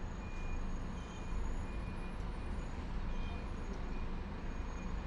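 Steady low rumble of a motor vehicle engine on the street, with a faint high-pitched whine that comes and goes above it.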